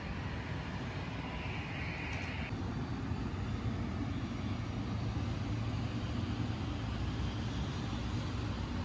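Steady low rumble of jet aircraft and ground traffic heard across an airport apron. A brief higher hiss comes about two seconds in.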